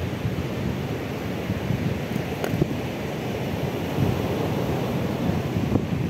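Black Sea surf washing onto a pebble beach, with wind buffeting the microphone.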